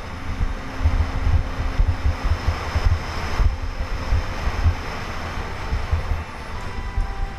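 Wind buffeting a GoPro Hero 3's microphone during a fast ski run down a groomed piste, in irregular low gusts, with the skis hissing over the snow, loudest about three seconds in.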